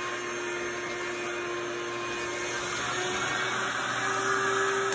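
An electric motor running with a steady whine, its pitch rising slightly about three seconds in.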